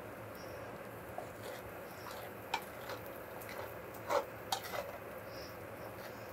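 Wooden spatula stirring and scraping fried rice in a stainless steel sauté pan, with a few light, irregular knocks against the pan over a steady hiss; the loudest knock comes about four seconds in.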